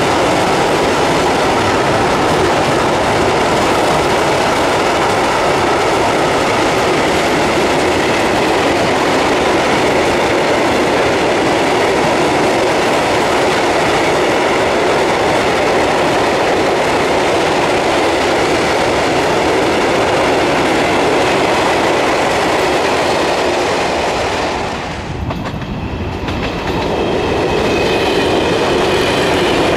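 Freight train of open wagons and tank wagons rolling past, with a steady rushing noise and the clickety-clack of wheels over the rail joints. About 25 s in the noise dips as the last wagon goes by, then rises again as a second train, an electric multiple unit, comes up.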